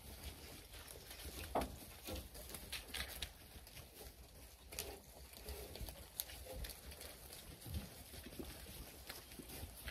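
Zwartbles sheep hooves trotting and scuffing over straw-littered ground: a scatter of irregular soft thuds and clicks.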